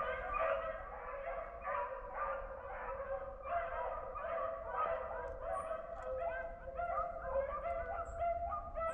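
A pack of beagles baying in overlapping calls, several a second without a break, as hounds do when running a rabbit's scent trail.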